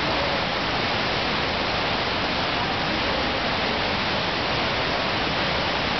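Rushing water of a FlowRider sheet-wave machine: a thin sheet of pumped water pouring steadily up and over the padded ride surface, a constant even rush with no let-up.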